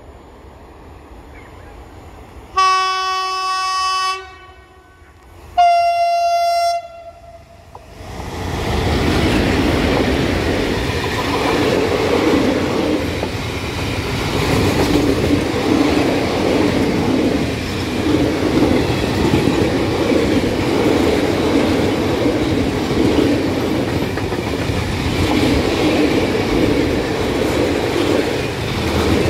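A freight train sounds its horn twice, a lower note then a higher one. From about eight seconds in the train passes close by: a long string of high-sided open freight wagons rumbling along with rhythmic wheel clatter.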